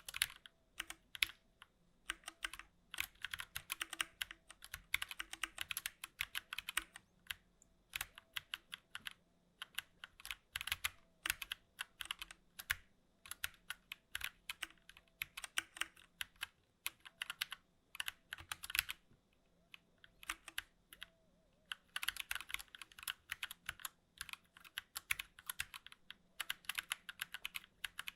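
Fast typing on a 60% mechanical keyboard: rapid runs of sharp key clicks in bursts, with brief pauses between them.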